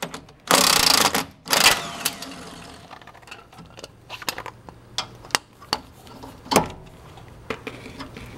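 Socket ratchet clicking in two quick runs as the fastener on the suspension wishbone bolt is backed off, followed by scattered light metal clicks and taps, the sharpest about six and a half seconds in.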